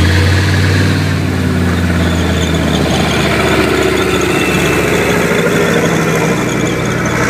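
A tank's engine running loud and steady as it drives past close by, with a high squeal from its tracks.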